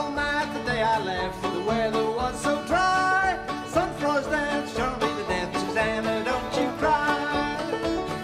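Bluegrass music led by banjo picking.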